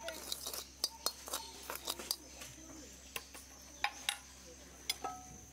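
Metal spoon scraping and clinking against an aluminium strainer and basin while sifting roasted, crushed seeds into powder, in irregular clinks and scrapes with a few sharper knocks.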